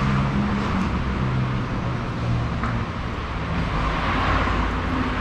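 Street traffic: motor vehicle engines running with a low hum, with road noise that swells about four seconds in, as of a car passing.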